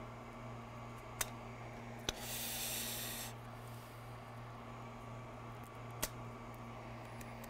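Small sharp clicks, three of them, from tools and parts being handled on an opened MacBook at a repair bench, with a short hiss lasting about a second after the second click, over a steady low hum.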